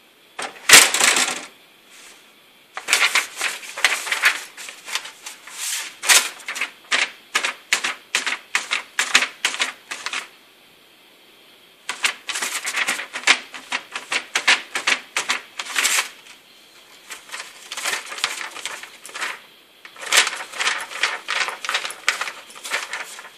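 Sheets of printer paper crinkling and crackling as a cat treads on them and pushes into a printer's paper tray, in three long spells of rapid crackles with short pauses between.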